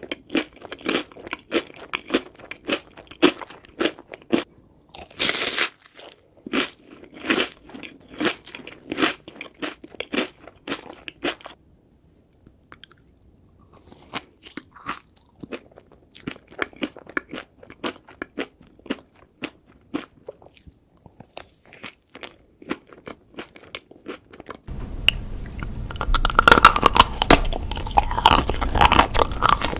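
Ice cream being bitten and chewed close to the microphone: a quick run of crisp crunches, a pause of about two seconds, then softer chewing. Near the end comes a louder, rougher stretch of crunching over a steady hiss.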